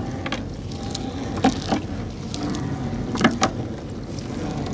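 Small fishing boat's engine running steadily, with a few sharp knocks on the boat, two close pairs of them.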